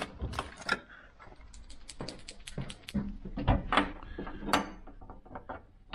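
Irregular clicks, taps and knocks of small objects being handled: a marker pen taken up and a metal hasp set against the steel door of an electrical box. There is a dull thump about three and a half seconds in.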